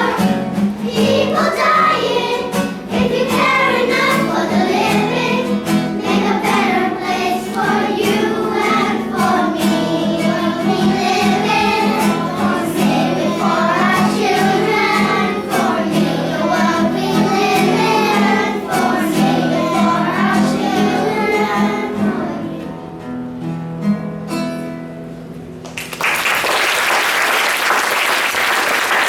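A children's choir singing a song to a strummed acoustic guitar; the song dies away a little after twenty seconds in, and applause breaks out near the end.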